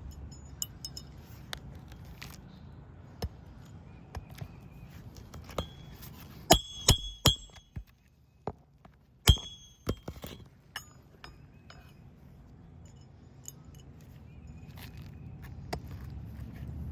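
Sharp metallic clinks and taps of metal tools working on roof shingles, scattered through, with a cluster of loud ringing strikes about six and a half to seven and a half seconds in and another near nine seconds, over a low steady rumble.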